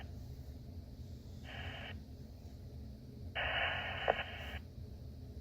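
Fire-department two-way radio channel between messages: a low steady hum, broken twice by short bursts of narrow-band radio static as a transmitter keys up without speech, the second louder and about a second long with a click in it.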